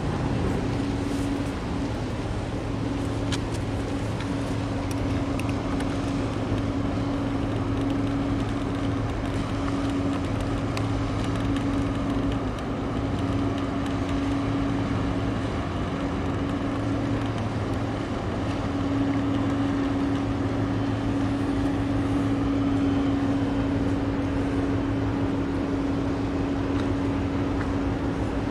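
Steady low drone of a container ship's engines and machinery passing close by, with a hum that holds one pitch; it grows slightly louder about two-thirds of the way through.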